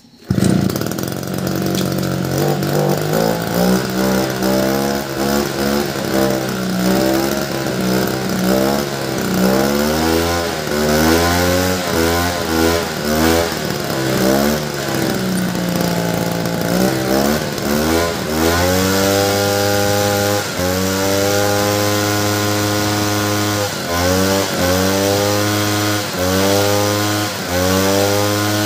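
Power sprayer's small petrol engine catching on a pull of the recoil starter and running, its speed rising and falling repeatedly, then settling into a faster, steadier run with a few brief dips near the end. It is running again after its carburettor was cleaned to cure a no-start.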